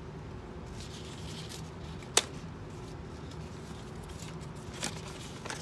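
Faint rustling of a paper envelope being handled and opened, with one sharp click about two seconds in, over a steady low hum.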